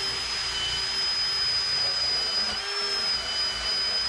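Ridgid cordless drill spinning a wire brush attachment against a rusted valve spring in a vise: a steady high motor whine over the scratchy hiss of the wires scrubbing rust off the coils.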